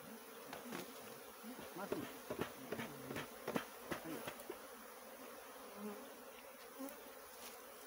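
A honey-bee colony buzzing steadily as its nest is worked, with a run of sharp clicks and knocks in the first half.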